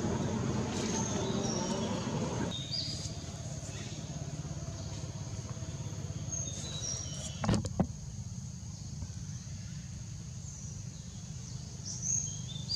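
Outdoor ambience: a steady low rumble, with a louder hiss over the first couple of seconds that stops abruptly. Short high bird chirps come now and then, and two sharp knocks fall about seven and a half seconds in.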